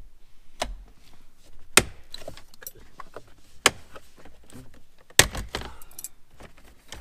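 Sharp plastic clicks and knocks as the gauge-cluster bezel of a 2018 Jeep Wrangler JL is pulled loose from the dash, its clips letting go one by one. The loudest snaps come about two, four and five seconds in.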